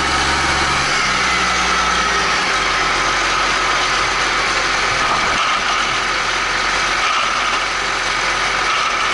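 Case IH Magnum 310 tractor's six-cylinder diesel engine running steadily, heard close to its exhaust stack. The low engine note steps down twice in the first few seconds, about one second and two and a half seconds in, as the revs come down.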